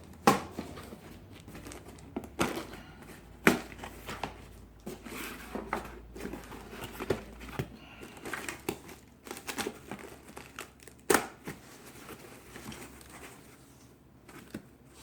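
Shipping box being unpacked by hand: crinkling and tearing of packing material and tape, with a few sharp knocks at irregular moments.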